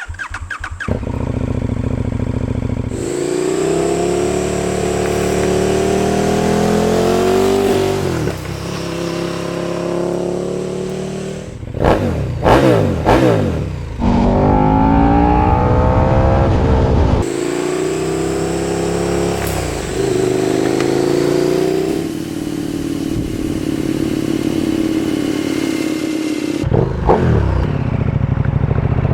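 KTM 1290 Super Duke R's V-twin engine through an Austin Racing exhaust, accelerating hard, its pitch climbing and then dropping several times. There is a burst of quick, sharp revs about twelve seconds in, and another short one near the end.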